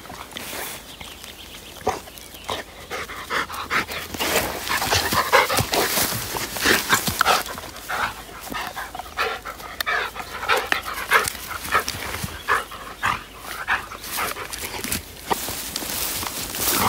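Labrador retriever panting, a run of short, irregular breaths, loudest in the middle.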